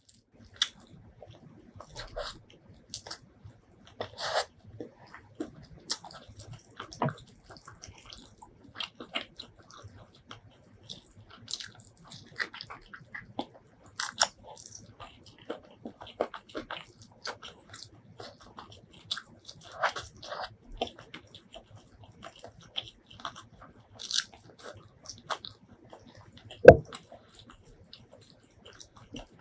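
Close-miked eating of spiced chicken and biryani rice by hand: wet chewing, lip smacks and clicks of the mouth, coming in short irregular bursts. Near the end comes one much louder thump.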